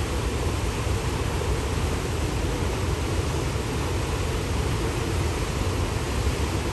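Steady rushing of a wide waterfall on a large river: an even, unbroken noise, heaviest in the low end.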